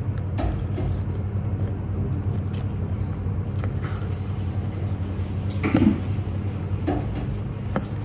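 Steady low mechanical hum with a few light clicks and clinks, the loudest about six seconds in.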